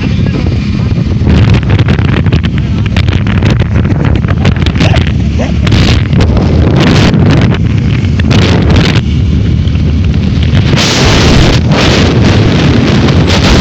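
Wind buffeting the microphone over a steady low rumble, gusting louder several times and most heavily in the last few seconds.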